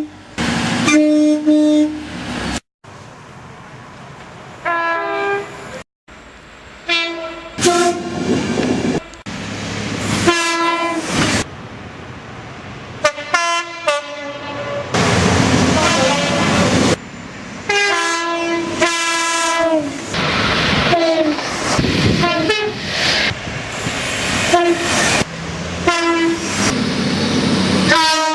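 A run of short clips of British train horns, many sounding two-note blasts, some repeated several times. Between them comes the rush and rumble of trains passing.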